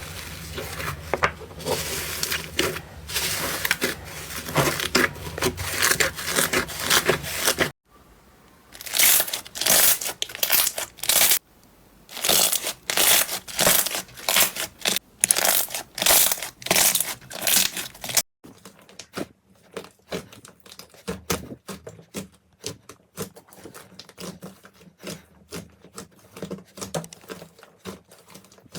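Slime being squeezed and poked by hand, with crackling, squishing and popping. The sound changes abruptly twice: first a dense, continuous crackle, then louder squishes at a little more than one a second with quiet gaps between them, then softer, rapid clicking.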